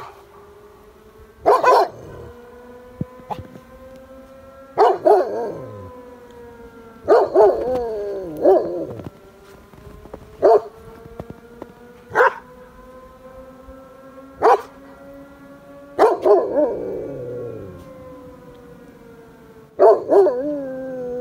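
Village fire siren sounding one long steady wail that slowly rises and falls in pitch, while a dog howls along with it in several drawn-out howls, with short sharp barks in between every couple of seconds.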